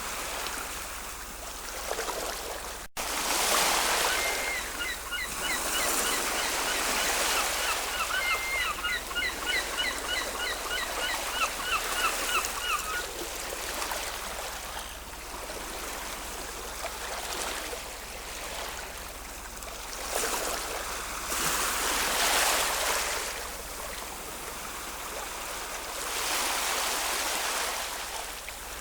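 Ocean waves washing in and out in repeated surges. From about four to thirteen seconds in, a bird calls in quick strings of short chirping notes over the surf.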